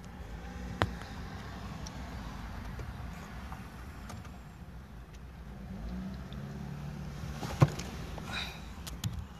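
Car cabin sound while the car waits in stopped traffic: a steady low engine-and-traffic rumble, with two sharp clicks, one about a second in and a louder one later on.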